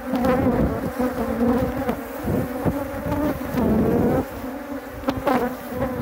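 Honey bees buzzing around an open hive close to the microphone, the pitch wavering as they fly past. A few light wooden knocks as hive frames are moved with a frame grip.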